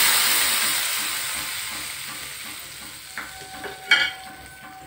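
Hot tempering of spices, garlic, green chilli and curry leaves fried in oil, hitting a pot of sour vegetable curry and sizzling, the sizzle fading away over the first three seconds. A few light clicks follow, with a sharper metal clink about four seconds in.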